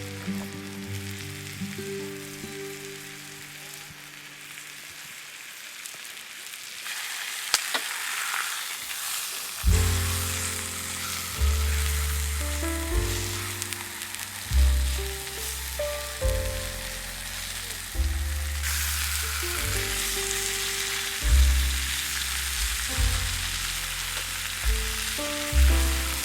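Food sizzling in a frying pan, the sizzle growing louder about seven seconds in, under background music with a bass line that comes in about ten seconds in.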